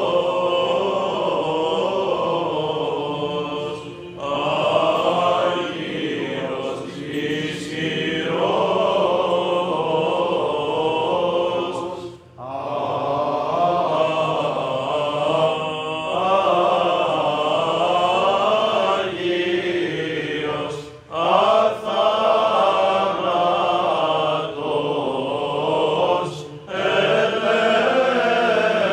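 A deacon chants the Gospel reading at the Orthodox Divine Liturgy, one man's voice intoning in long phrases broken by short pauses every several seconds.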